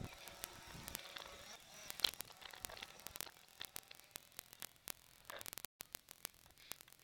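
Faint hiss with frequent sharp clicks and crackles, with a brief dropout to silence about three-quarters of the way through.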